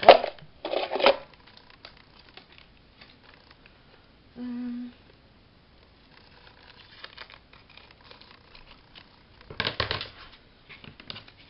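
Paper being handled at a craft table: short crinkling rustles in the first second and again near the end, with faint small handling sounds between. About four seconds in there is a brief hummed 'mm'.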